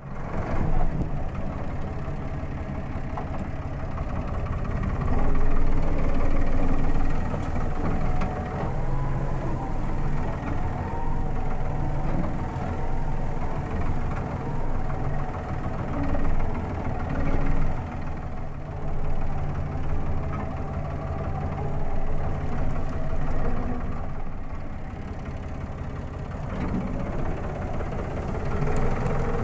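Farm tractor engine running steadily as the tractor drives along a rough dirt track, heard from the driver's seat. It gets louder for a couple of seconds about five seconds in.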